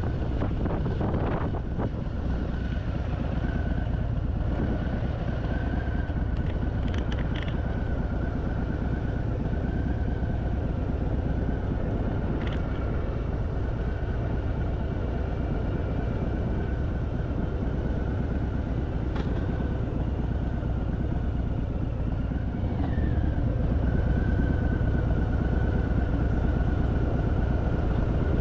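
Harley-Davidson Fat Boy's V-twin engine running steadily under way, with road and wind noise; it gets a little louder in the last few seconds.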